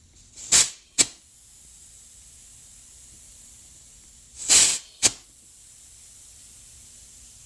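Faint steady hiss of pressurised air leaking past the crankshaft seal of an Arctic Cat ZR 580 two-stroke engine under a crankcase pressure test. The seal is shot and will not hold the test pressure, a leak that causes a lean condition. Twice a short, loud spray cuts in, each followed by a sharp click.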